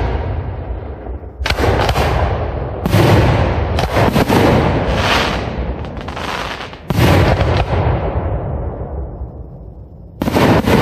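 Aerial firework shells bursting in quick succession at a fireworks display, each sharp bang trailing off in a long rolling echo. After a brief lull, one more shell bursts near the end.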